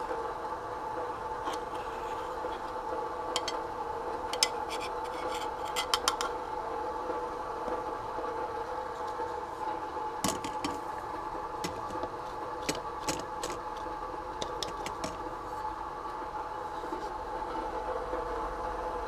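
Light clinks and clicks of dishes and utensils being handled, bunched in two spells, over a steady appliance-like hum.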